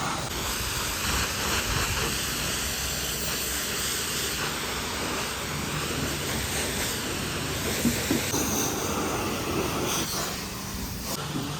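High-pressure washer jet spraying water, a steady hiss that changes in tone about eight seconds in and again around ten seconds.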